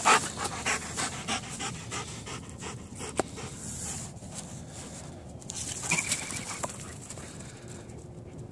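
Red Doberman panting close by in quick, rhythmic breaths, about four a second, which grow fainter after two or three seconds. A short louder sound comes about six seconds in.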